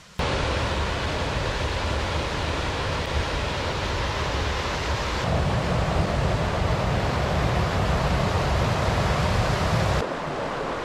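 Steady rush of a small mountain stream close by, loud and even with a deep low rumble, cutting in suddenly just after the start.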